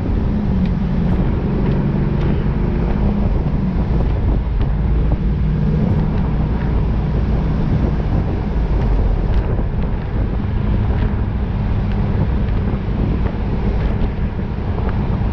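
2002 Trans Am WS6's LS1 V8 engine running while the car is driven, under steady road and wind noise.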